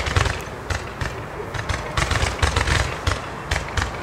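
Röder Irrlicht Weiß Roman candle cluster firing white stars: a rapid, irregular string of pops with low thumps, about four a second.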